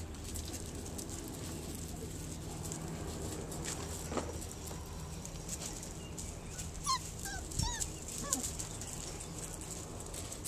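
Puppies whimpering and yipping in a quick cluster of short, high squeaks about two-thirds of the way through, over light crunching and pattering of small paws on gravel.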